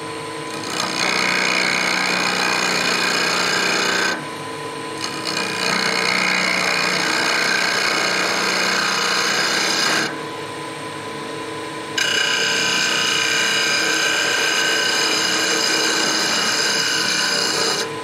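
A wood lathe running while a gouge cuts a cove into the spinning wooden handle, making a steady rasping hiss over the lathe's hum. The cut stops twice, for a second or two each time, about four seconds in and again about ten seconds in, as the tool comes off the wood, and only the lathe runs.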